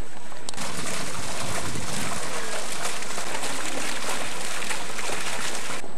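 Fountain jets splashing into a shallow basin: a steady rush of falling water that starts about half a second in and cuts off suddenly near the end.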